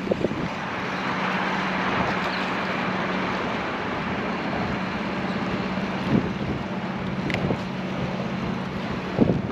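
Wind buffeting the microphone as a steady rushing noise, over a constant low hum.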